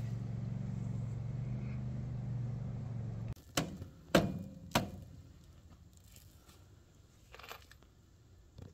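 Kubota tractor's diesel engine idling with a steady low hum, which stops abruptly about three seconds in. Three sharp knocks follow, about half a second apart.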